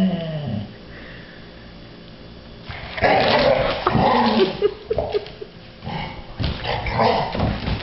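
Dogs growling in play while tussling over a rubber Kong toy. A short falling growl right at the start, a lull, then from about three seconds in a run of rough, loud growls.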